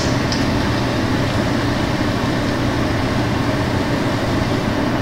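A ventilation fan running: a steady whir with a constant low hum that does not change.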